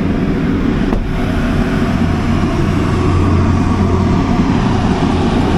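Engine of a 400 kW Generac natural-gas standby generator running steadily under building load, a loud, even drone with a low hum. A faint click about a second in.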